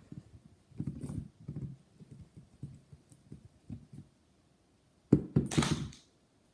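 A small ball of putty bouncing and being handled on a hard surface: soft irregular thuds for a few seconds, then a louder thump with a brief rustling scrape about five seconds in.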